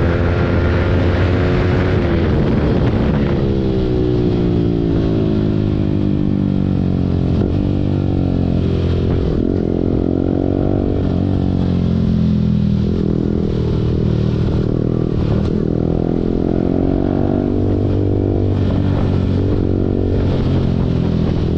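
Yamaha R15 V4's single-cylinder engine through an Akrapovic full-system exhaust, riding in traffic; the engine note rises and falls again and again with throttle and gear changes.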